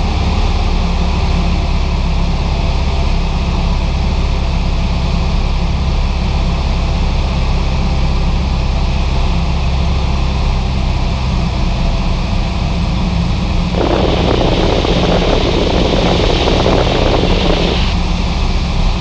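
Cessna 172's engine and propeller droning steadily in cruise, heard inside the cabin. About fourteen seconds in, a burst of hiss starts suddenly and cuts off about four seconds later.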